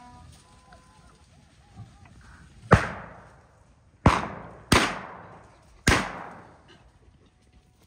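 Four gunshots from hunters' guns. The first comes about three seconds in and the other three follow within about two seconds, each echoing briefly.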